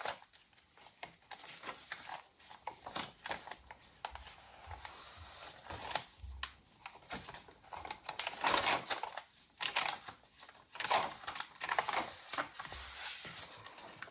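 Pages of a handmade paper junk journal being turned and handled, with irregular rustling, crinkling and small taps of paper.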